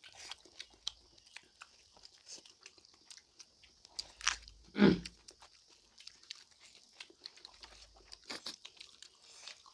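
Close-up chewing of a smoked pork, bamboo shoot and rice meal, with many small wet crunches and mouth clicks, and one louder, lower sound about five seconds in.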